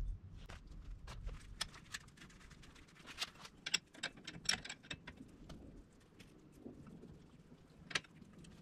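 Scattered light metal clicks and taps of hand tools and fingers working on a rusty front brake caliper and its bracket, with a few sharper clinks, one a few seconds in and another near the end.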